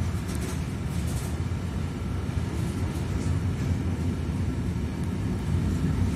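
Intermodal freight train of pocket wagons loaded with semi-trailers rolling past at speed: a steady low rumble of steel wheels on the rails.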